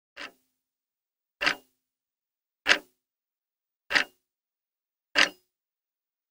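Slow, evenly spaced ticks like a clock-tick sound effect, one about every 1.25 seconds, five in all, with dead silence between. The first tick is softer.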